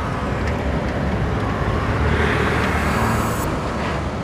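Bajaj Avenger 150 single-cylinder motorcycle engine running under way, with road and wind noise on the helmet microphone, growing louder over the first couple of seconds.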